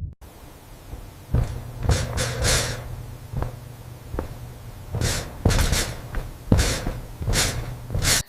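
A series of about ten irregular soft thumps and rustling bursts, bunched in two clusters, over a steady low hum.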